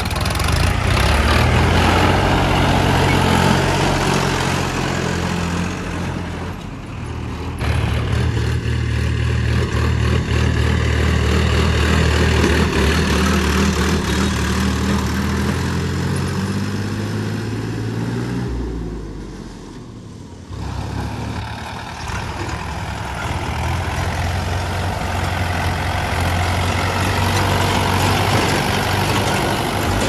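Diesel tractor engines of a Sonalika DI 42 RX and a Mahindra Yuvo 475 DI running steadily as they pull loaded trolleys. The engine sound breaks off and changes twice, about seven seconds in and again around twenty seconds in, dipping briefly before the next tractor's engine comes in.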